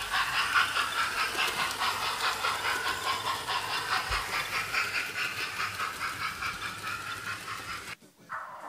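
Hornby TTS sound decoder in an OO gauge King class 4-6-0 model steam locomotive playing a rapid, evenly repeating steam chuff through the model's small speaker as the locomotive runs along the track. The sound cuts off abruptly near the end.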